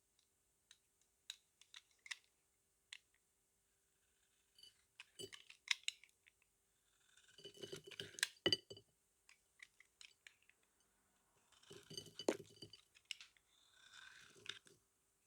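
A blade cutting into a bar of soap: scattered sharp clicks, then crisp crunching strokes about halfway through and again in the last few seconds.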